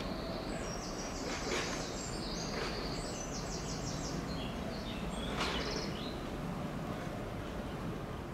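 Small songbird singing a run of high chirps and quick trills, over a steady low background rumble.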